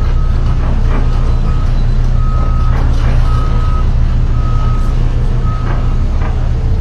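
An electronic warning beeper repeating about once a second, each beep about half a second long, over a steady heavy low rumble.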